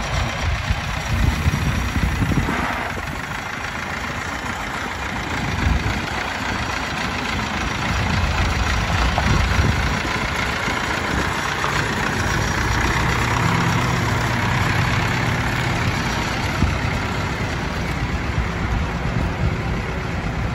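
Allis-Chalmers 175 tractor's engine running steadily at low speed as the tractor drives by.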